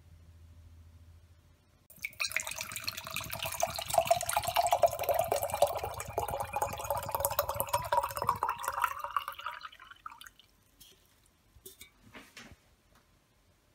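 Liquid poured from a can into a stemmed glass, starting about two seconds in: a splashing pour with a ringing pitch that rises steadily as the glass fills, stopping after about eight seconds. A few faint knocks follow near the end.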